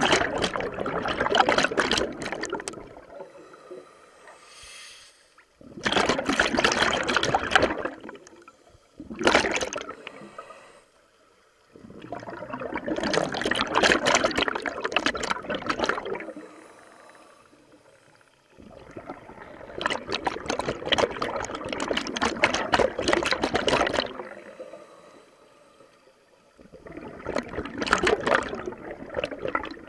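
Scuba diver's regulator exhaust bubbling as the diver breathes out underwater, in six bursts of one to five seconds with quieter gaps between them.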